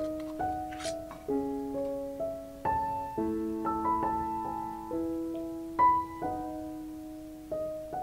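Background piano music: slow chords and single notes, each struck and left to ring out.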